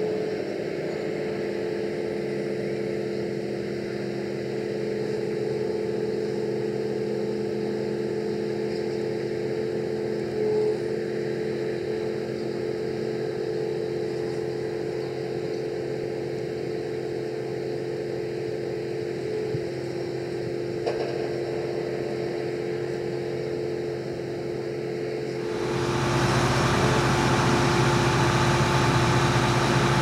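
John Deere S670i combine harvester running steadily in rice, a constant machine hum made of several steady tones. About 25 seconds in the sound turns suddenly louder and rougher.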